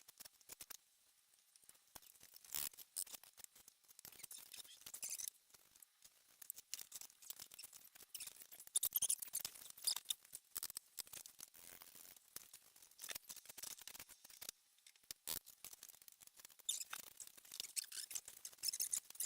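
Irregular light scraping and tapping of hand tools on brick and mortar, with a louder run of scrapes about nine seconds in.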